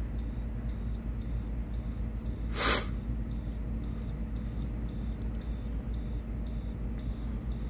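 School bus dashboard warning beeper sounding a short high beep about twice a second, over a low steady hum. A brief rush of noise comes about two and a half seconds in.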